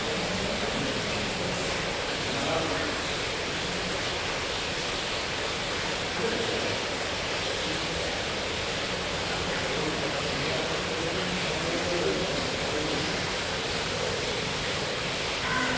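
Steady, even background hiss with no breathing heard, with faint distant voices now and then.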